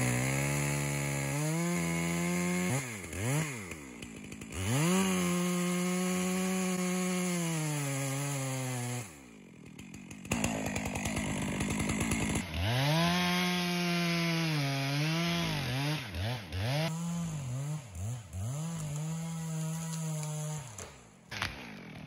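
Stihl two-stroke chainsaw cutting into the trunk of a standing Douglas fir, its engine revving up and down again and again as it works the cut, easing back toward idle twice.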